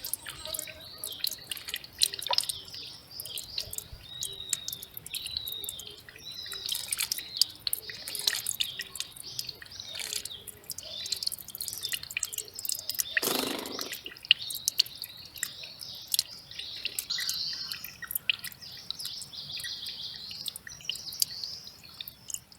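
Small birds chirping again and again over a mountain stream that trickles and drips. About thirteen seconds in there is one brief, louder sound.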